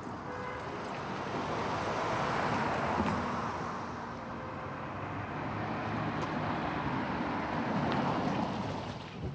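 An SUV driving slowly up and pulling in, engine running and tyres rolling, the noise swelling and easing twice as it passes close.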